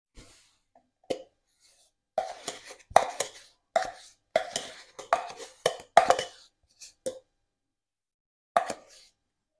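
A spoon scooping thick sour cream out of a plastic tub and dropping it into a bowl: a run of short wet plops and spoon knocks, several a second, with one more near the end.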